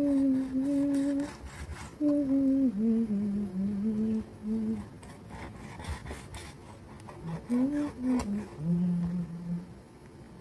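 A person humming a tune in held notes that step up and down, with scattered sharp knocks of a large kitchen knife chopping raw pork on a wooden cutting board.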